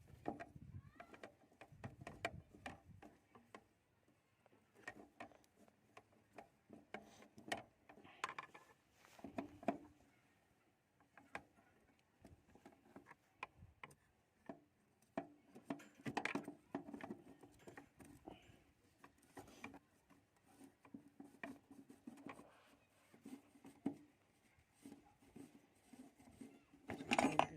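Irregular clicks, taps and knocks of a 10 mm spanner and metal parts as the bolts and locking ring on a Tata Aria's fuel pump cover are undone, with the loudest knocks near the end.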